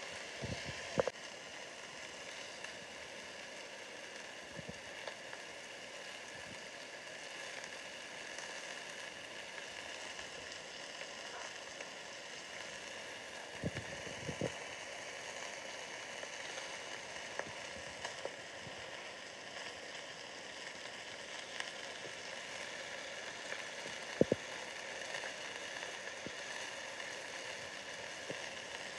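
Block of raw bacon strips frying in a nonstick pan, giving a quiet, steady sizzle as the fat starts to render, with a few sharp clicks along the way.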